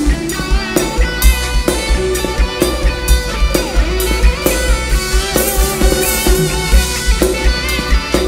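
Thai ramwong dance music played by a band over a loud PA: a drum kit keeping a steady beat, with bass and guitar.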